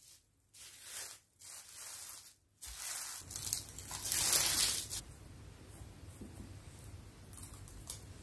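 Thin plastic film rustling and crinkling as it is handled, in several bursts, loudest about four seconds in as it is lifted off the dough balls.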